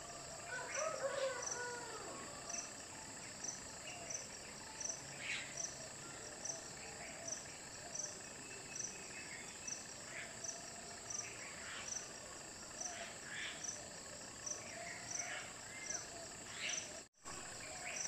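Insects trilling steadily, with a chirp repeating about every two-thirds of a second, under scattered short bird calls. A longer, louder call with a curving pitch comes about a second in. The sound cuts out for an instant near the end.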